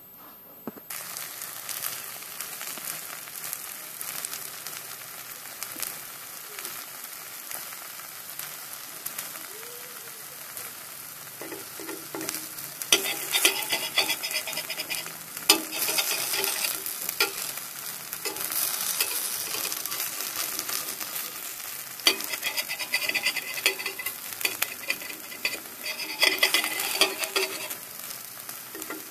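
Grated potato and egg frying in oil on a flat griddle, a steady sizzle that starts about a second in. A metal spatula scrapes and presses against the griddle in louder stretches around the middle and again near the end.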